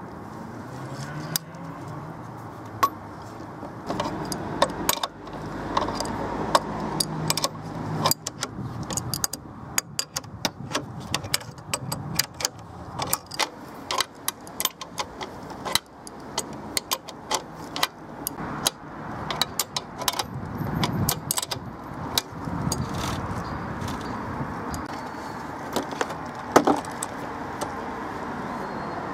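Steel washers, nuts and bolts clinking and rattling, with an adjustable wrench knocking against them, as a homemade chainsaw milling attachment is bolted onto the chainsaw bar. The sharp clinks come irregularly, often in quick runs.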